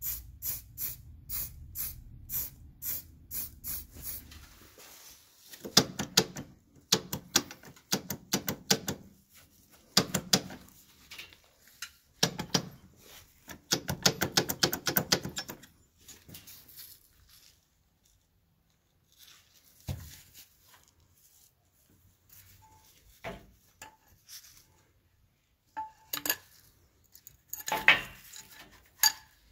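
Aerosol spray paint can spraying in short repeated bursts, about two a second, for the first few seconds. Then louder irregular metallic clattering and knocking comes in clusters with quiet gaps between.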